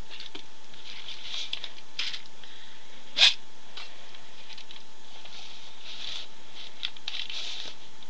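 Rustling and scraping of silk dupioni fabric being handled and stretched over a wooden frame, in several short soft bursts, with one sharp click a little over three seconds in.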